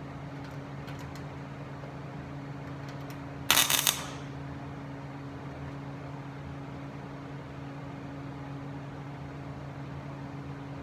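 One short tack weld, about half a second of loud crackling arc from a MIG welder fusing a sheet-metal patch panel into a truck door skin, about three and a half seconds in. A steady machine hum runs underneath.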